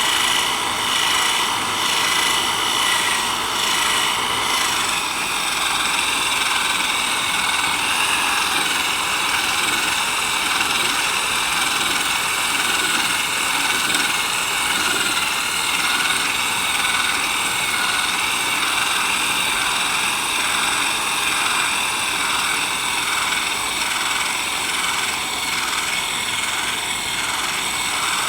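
Power drill running steadily with a fine-grit sanding pad wet-sanding a plastic headlight lens, a continuous high whine whose pitch drops slightly about five seconds in.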